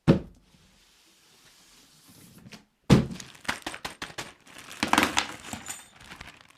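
Handling noise: a single thump at the start, then near silence, then from about three seconds in an irregular run of clicks, knocks and rustling as things are handled and unpacked.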